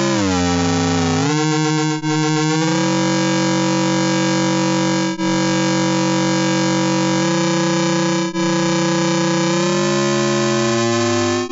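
Dense electronic synthesizer drone of many stacked tones: they slide down in pitch over the first two seconds or so, hold steady, then glide apart and upward near the end. The sound drops out briefly about every three seconds.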